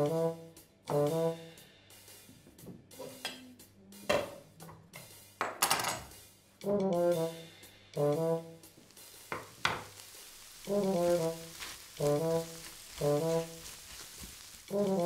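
Brass background music, trombone to the fore, playing short repeated phrases. Under it are kitchen sounds: a few knocks of utensils, a burst of sizzling about six seconds in as vegetables go into a hot frying pan, then a faint steady frying hiss.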